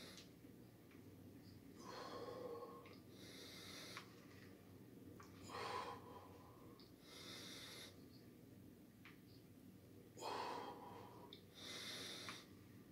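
Faint heavy breathing of a man recovering from a hard set of resistance-band biceps curls: about six loud breaths, in and out, a second or two apart.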